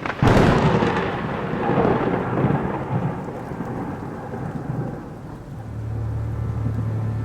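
A sudden crack of thunder, then a rumble that dies away over several seconds over a hiss of rain. A low, steady droning tone of the ambient music comes back in near the end.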